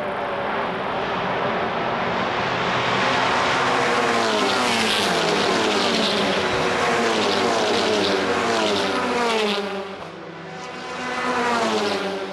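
A pack of TCR touring cars, turbocharged 2.0-litre four-cylinders, passing one after another at racing speed, several engine notes overlapping and rising and falling in pitch. The noise drops about ten seconds in, then one more car goes by near the end.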